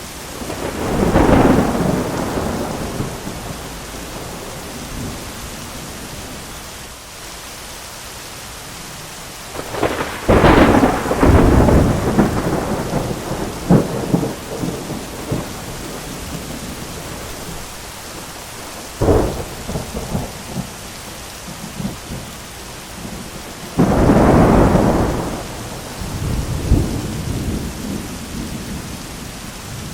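Thunderstorm: steady rain with repeated thunder, a rumble right at the start, a sharp crack rolling into a long rumble about ten seconds in, a short sharp clap around nineteen seconds, and another loud roll of thunder about twenty-four seconds in.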